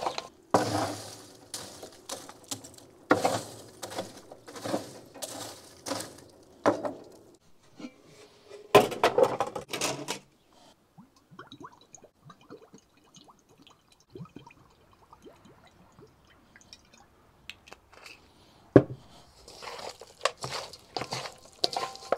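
Hands mixing and squeezing pieces of raw meat with sliced onions in a metal bowl: wet squelching in bursts, with a quieter stretch in the middle. A single sharp knock comes a few seconds before the end.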